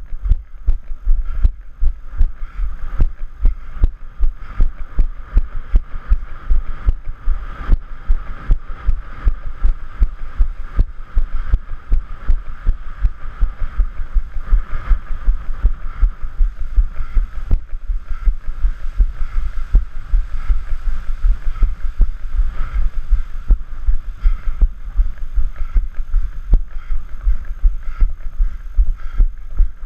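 A trail runner's footfalls on a dirt path: an even run of low thuds, about three a second, picked up by the camera the runner carries.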